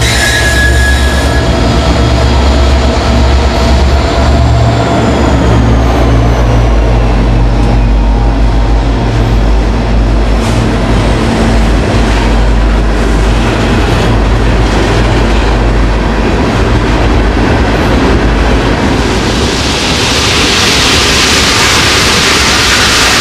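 Three SD40E diesel locomotives pass close by, their engines fading out as a long string of ballast hopper cars rolls past, the wheels clicking over the rails and a high whine sliding slowly down in pitch. Near the end a loud rushing hiss sets in as the hoppers begin dropping ballast onto the track.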